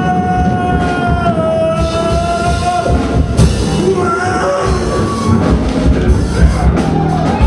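Live punk rock band playing loud, with drums, bass and electric guitar. A long held note rings over the band for about the first two seconds before the playing gets busier.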